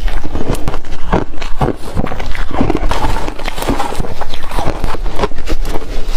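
Ice being chewed and crunched between the teeth close to the microphone: a rapid, irregular run of loud crunches.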